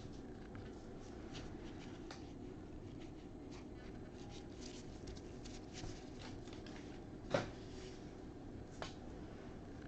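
Quiet handling of trading cards and their foil pack wrappers: soft rustling and light clicks, with a sharper tap about seven seconds in.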